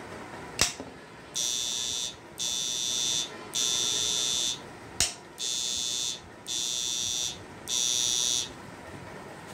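Homemade electric fishing machine's buzzer beeping six times, each high-pitched beep just under a second long with short gaps, while the machine drives a tube lamp as its load. A sharp click comes just before the first beep and another about halfway through.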